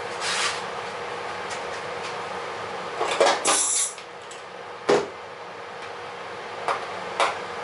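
A pneumatic 2X rivet gun fires in short bursts about three seconds in. Sharp metallic clicks of handled tools and clecos come before and after it, over a steady shop hum.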